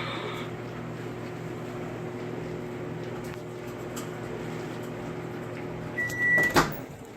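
Microwave oven running with a steady hum. About six seconds in, a single half-second beep sounds as the timer ends, followed at once by a loud clunk and click.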